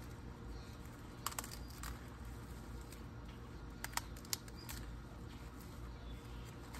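Faint low rumble with a few short sharp clicks: a pair about a second in, one shortly after, and a quick cluster of three or four near the middle.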